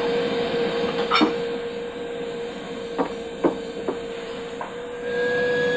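Vacuum cleaner running with a steady hum and hiss, with a few short knocks, getting louder near the end. It is loud enough to drown out a greeting.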